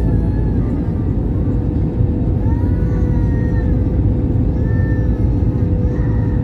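Jet airliner cabin noise heard from a window seat over the wing: a loud, steady low rumble of the engines and rushing air with a steady hum in it.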